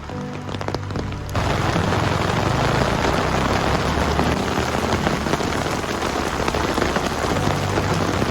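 Rain falling: scattered drops at first, then heavy, dense rain that starts abruptly about a second and a half in and cuts off suddenly at the end. Soft background music sits underneath.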